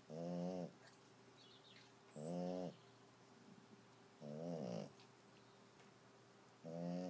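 Snoring: four pitched snores at a slow, even rhythm, one about every two and a quarter seconds, each lasting about half a second.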